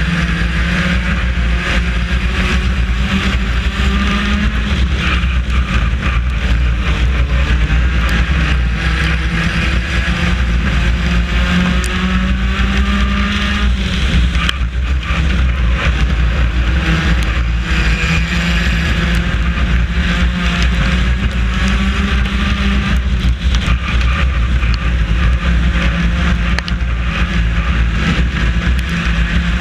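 Four-cylinder race car engine heard from inside the car at racing speed, its note rising and falling every few seconds as the driver accelerates and lifts, over a constant low rumble.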